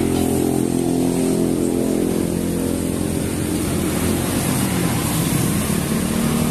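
A vehicle engine running steadily at a low, even pitch.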